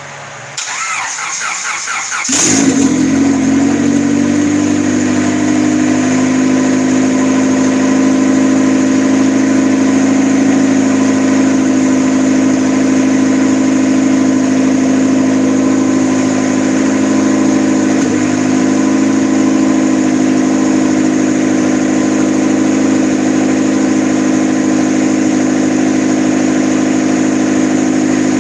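Turbocharged Honda D16 four-cylinder engine in a Civic cold-started: the starter cranks for about two seconds, the engine catches sharply and then settles into a steady idle.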